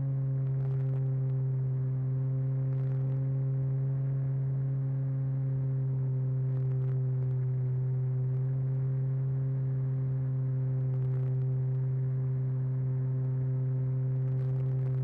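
Propeller and motor of a radio-controlled model airplane in steady cruising flight, heard from on board as a constant low drone with a few overtones and only a slight waver in pitch.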